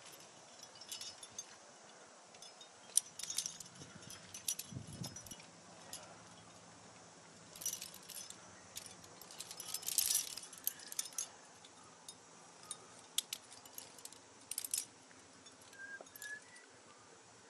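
Metal climbing gear (carabiners and protection racked on a harness) clinking and jangling in scattered short bursts as the climber moves in the crack. There is a brief low thump about five seconds in.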